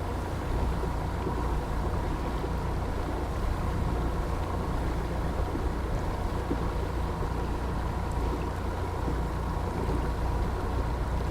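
Cruise boat's engine running steadily underway, a constant low drone with a faint steady whine above it.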